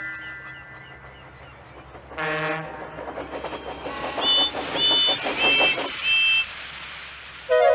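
Steam locomotive sound effects: a short horn-like blast, then rapid puffing with hissing steam and four short two-note whistle toots.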